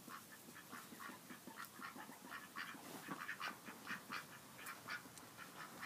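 Domestic ducks quacking: a steady run of short quacks, several a second.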